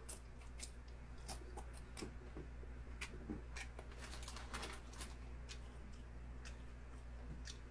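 Faint eating sounds: scattered small clicks and smacks from chewing and from chopsticks on the bowl, over a low steady hum.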